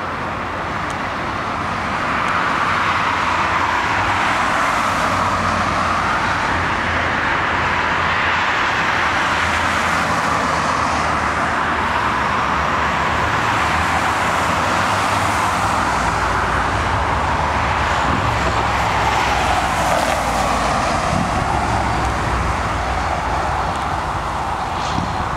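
Steady mechanical rushing noise with a low hum underneath, slowly swelling and dipping, a little louder from about two seconds in.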